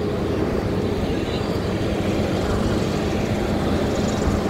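Steady low rumble and constant hum from a passenger train standing at the platform.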